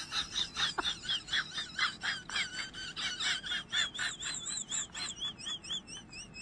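Rapid, repeated chirping calls, several a second, with a wavering whistle-like call near the end.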